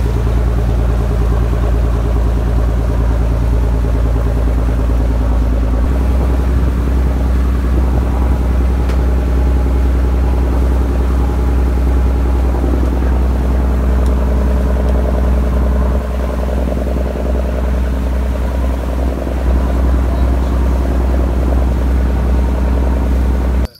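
Fishing boat's inboard engine running steadily under way, a loud low drone whose pitch drops slightly about six seconds in.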